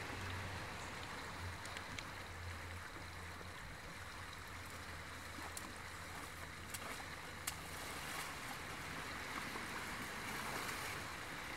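A shallow river running steadily, a light even rushing of water; near the end, water sloshes as a person wades in.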